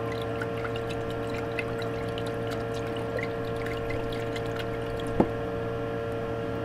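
Distilled rinse water sloshing and trickling in a glass beaker of cement silver powder as the acid is washed out, over a steady background hum. One sharp click about five seconds in.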